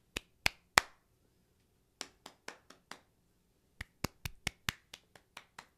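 A series of sharp clicks made with the hands: three, then five, then a quicker run of about nine.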